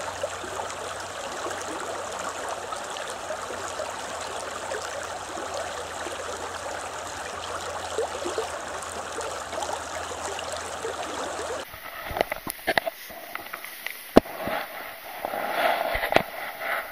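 A shallow, stony river flowing, a steady rush of water. About twelve seconds in it gives way to sharp knocks and rustling from handling close to a body-worn camera.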